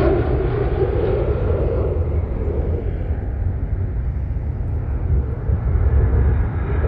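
Fighter jet's engines heard in flight overhead, a steady jet noise that thins out in the middle and builds again near the end. Wind rumbles on the microphone.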